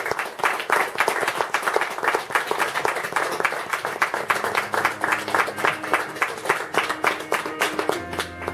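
Wedding guests applauding the newly introduced couple, a dense patter of many hands clapping. Music begins faintly beneath the applause about halfway through.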